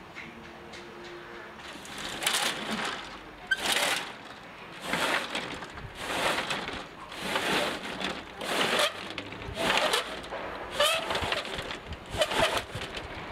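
Roller shutter being hauled up by its strap in repeated pulls, the slats rattling with each pull, about ten pulls a little over a second apart, with a brief squeak near the end.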